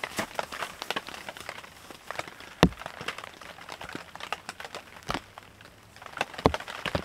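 Rain tapping irregularly on a tent's fabric, with the nylon of the tent's mesh door rustling as it is handled. A few sharper knocks stand out, the loudest about two and a half seconds in.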